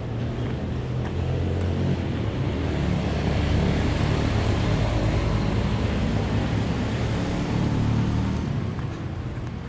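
Road traffic: a motor vehicle passing close, its engine hum and tyre noise growing louder about two seconds in and fading again near the end.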